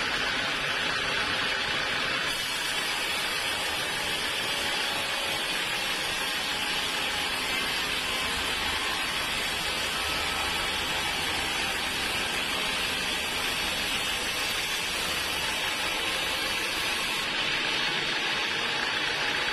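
Sawmill saw running steadily, with a dense, noisy sound. The sound shifts about two seconds in and again near the end.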